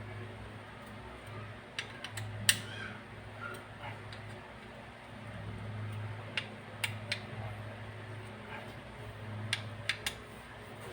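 Scattered sharp clicks and taps, in small clusters of two or three, from small metal parts and tools being handled during repair of an oil-free dental compressor's piston, over a steady low hum.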